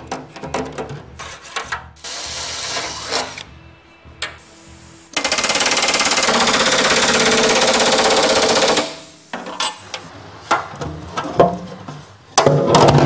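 Pneumatic rivet gun hammering rivets into an aluminium seat panel in one steady burst of very rapid blows, about three and a half seconds long, starting about five seconds in. Scattered clicks and taps of tools on metal come before and after it.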